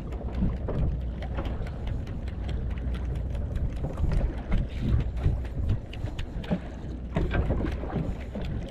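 Wind buffeting the microphone over water lapping and slapping against a small fishing boat's hull, with irregular knocks and splashes throughout.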